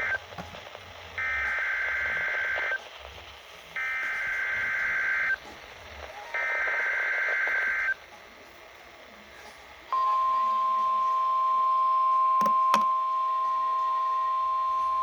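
EAS SAME digital data bursts from a NOAA Weather Radio broadcast, a buzzy warbling screech. A short end-of-message burst comes first, then three longer header bursts about a second and a half each, evenly spaced. About ten seconds in, the steady 1050 Hz weather radio alert tone starts and holds, with a brief click partway through.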